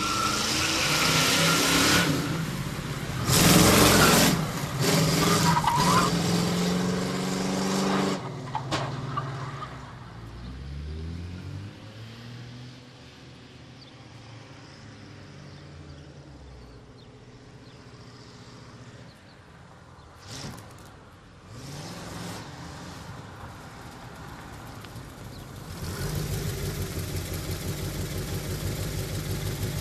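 Ford Mustang Mach 1's V8 revving hard and accelerating for the first eight seconds or so. Its engine note then falls and fades away. After a short loud burst about twenty seconds in, the engine is heard again, and near the end there is a steady rumble.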